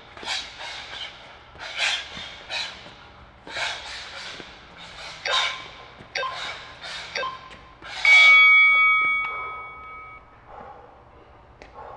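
A boxer's sharp hissing exhalations with each punch while shadowboxing. About a second apart, three short beeps from an interval round timer count down, then about eight seconds in the timer's ring, the loudest sound, fades over two seconds to end the work interval. Heavier breathing follows during the rest.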